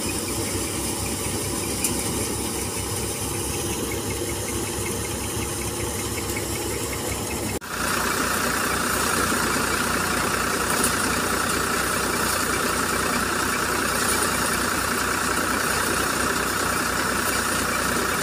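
Tractor-driven threshing machine running steadily under load as sheaves are fed in, the threshing drum's hum mixed with the engine. About seven and a half seconds in the sound changes abruptly to a second thresher running louder, with a stronger high hum.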